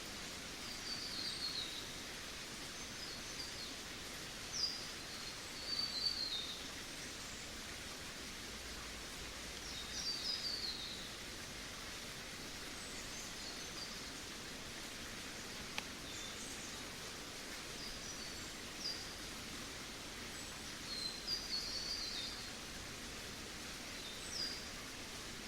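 Small birds chirping in short clusters of quick, high, falling notes every few seconds, over a steady outdoor hiss.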